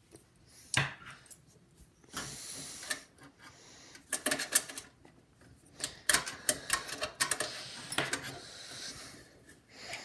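Metallic clicks and clatter of a screwdriver and bit extender working at the CPU cooler's last screw, in several short bursts.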